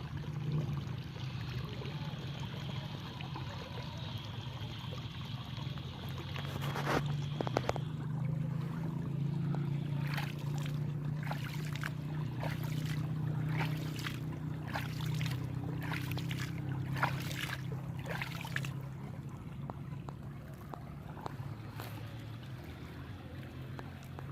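A small river running over a small waterfall: a steady rush of water with a deep low rumble, and a run of short sharp splashy sounds through the middle.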